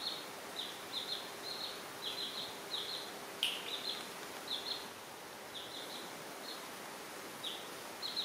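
Young chicken chicks peeping: short, high, slightly falling peeps, often in quick twos and threes, sparser in the middle. A single sharp click about three and a half seconds in.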